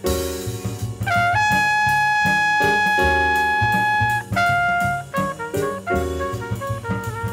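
Small-group modern jazz recording: a cymbal crash, then a horn holds one long high note for about three seconds before moving into shorter phrases, over a walking bass line and steady cymbal strokes.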